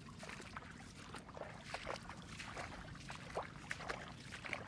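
Water sloshing and splashing in short, irregular bursts, over a steady low rumble.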